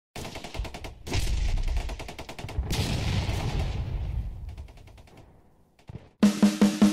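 Rapid gunfire, many shots in quick succession like machine-gun bursts, with a heavier blast about two and a half seconds in that dies away over the next few seconds. A drum beat starts near the end.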